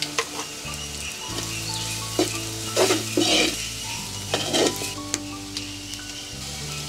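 Tinned fish being stirred into frying onions and chilies in an earthenware pot: steady sizzling, with a few loud scrapes of the spoon against the pot a couple of seconds in and again around the middle.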